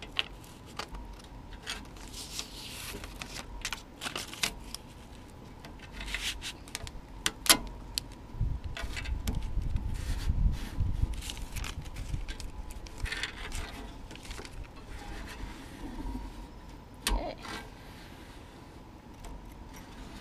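Adhesive-backed anti-slip tread strip being peeled from its paper backing and pressed and rubbed down by hand onto a camper's rubber-covered entry step: crackling paper, scraping and scattered clicks, with one sharp knock a little past a third of the way in. A low wind rumble on the microphone builds in the middle.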